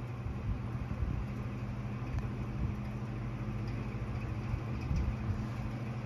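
Casablanca Modern table fan running on its medium speed: a steady motor hum under the rush of air from the blades.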